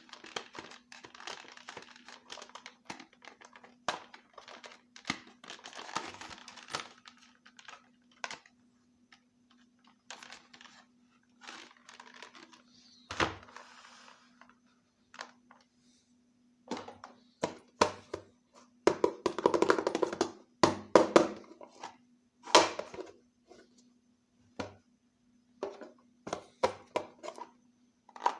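Small plastic toy pieces and their packaging being handled: scattered clicks, taps and knocks, with stretches of crinkling, and a louder rustling patch about two-thirds through. A faint steady hum lies underneath.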